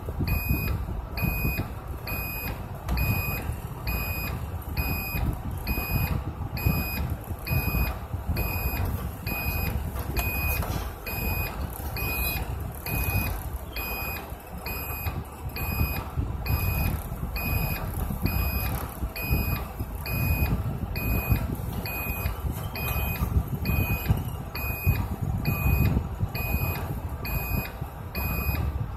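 Bus engine and road noise while driving, with a steady high electronic warning beep repeating a little more than once a second from the driver's cab.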